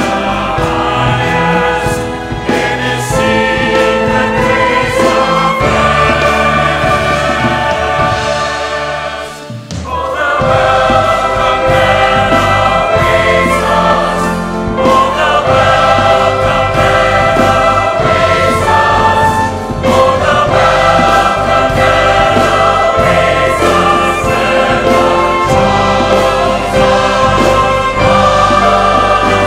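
Large mixed choir singing a hymn, accompanied by a small string ensemble. There is a short drop in the music about nine seconds in, then the full choir comes back in.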